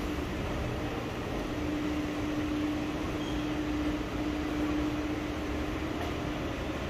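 Steady mechanical hum with air noise and a single droning tone that breaks off briefly about four seconds in.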